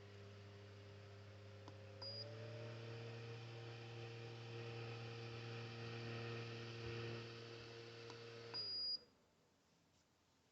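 Orteen 9-inch portable rechargeable fan's motor running with a steady hum. A short beep about two seconds in, and the fan steps up to a higher speed. A second beep near the end, and the motor winds down to a stop, as when the fan is switched off.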